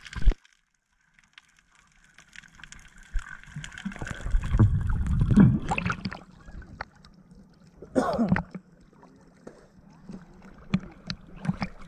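Water sloshing and gurgling against a waterproof action-camera housing as it rises from underwater and breaks the surface, with a loud low churning about four to six seconds in and a short splash burst about eight seconds in.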